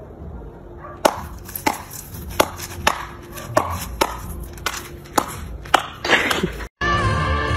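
A steady series of sharp knocks or slaps, about one every half second, followed near the end by a short scraping rustle.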